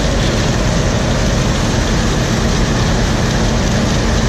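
Combine harvester running steadily at a constant loud level, with a low steady hum under dense machine noise.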